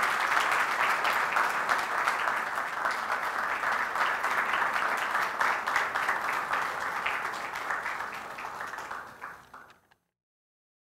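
Audience applauding, a dense steady clapping that fades out about two seconds before the end.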